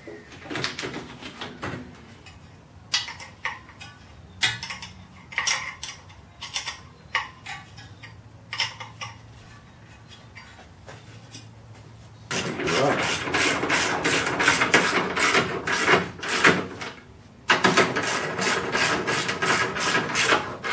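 Hand tools and metal parts being handled in a car's engine bay while the radiator is fitted. Scattered clicks and knocks at first, then from about twelve seconds in two long runs of fast, dense clicking and rattling, split by a brief gap.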